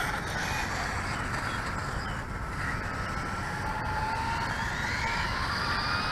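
Electric radio-controlled cars' motors whining, rising and falling in pitch as they speed up and slow down, over a steady hiss of tyres and running gear.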